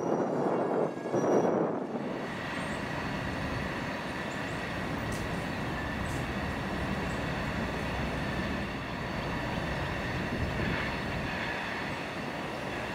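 Canadian National freight train rolling past on the rails: a steady rumble of wheels on steel with faint, high, steady squealing tones above it. The first two seconds are louder and rougher before the sound settles.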